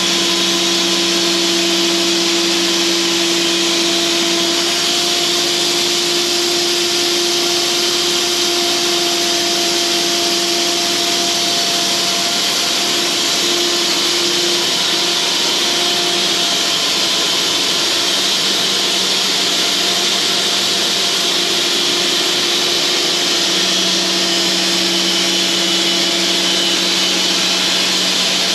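Cooks band sawmill running, its engine humming steadily as the band blade saws through a log. The engine's hum weakens through the middle stretch and strengthens again near the end.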